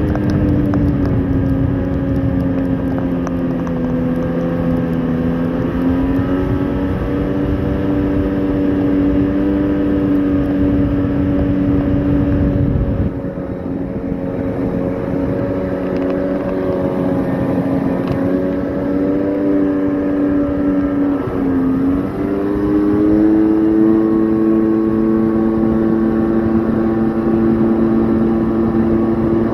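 Personal watercraft engine running steadily under way over a rushing noise. About 21 seconds in, the engine note dips briefly, then rises to a higher, steady pitch.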